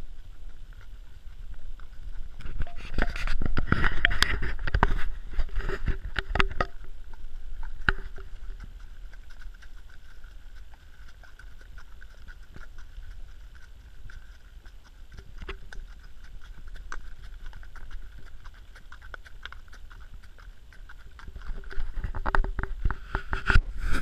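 A ridden horse's hooves on a leaf-strewn dirt track, heard from the saddle: uneven knocks and rustling, busiest about three to seven seconds in and again near the end, with sparser steps between.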